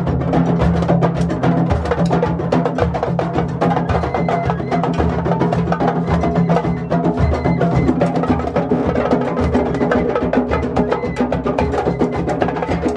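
A group of hand drummers playing together in a continuous, densely struck groove: congas and djembes, with timbales among them.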